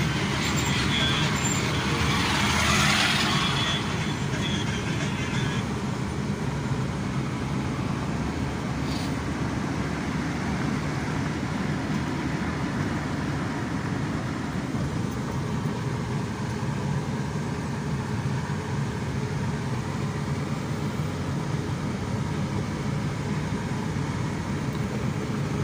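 Steady road and engine noise heard from inside a moving car, with a louder rush of noise in the first few seconds while a container truck is alongside.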